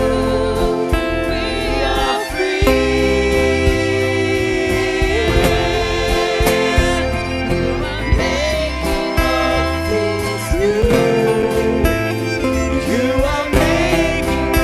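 Live contemporary worship music: a voice singing over keyboard and guitar accompaniment.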